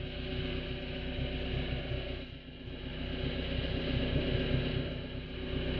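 Motorboat engine running steadily, a constant hum with an even low pulsing, over some wind and water noise.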